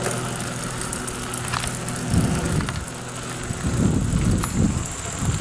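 Wind buffeting the microphone in irregular low rumbling gusts, starting about two seconds in and strongest near the end, over a steady low hum.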